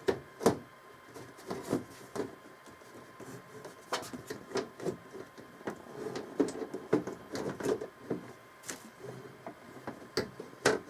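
PC case side panel being fitted back on: an irregular run of clicks, knocks and scraping handling noises, with a few sharper knocks near the end.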